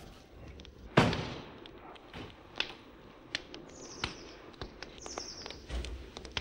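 A single sharp bang about a second in, followed by scattered fainter clicks and cracks.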